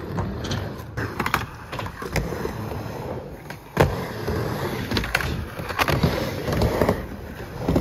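Skateboard wheels rolling over concrete with a steady rumble, broken by several sharp clacks of the board hitting the surface, the loudest about four seconds in.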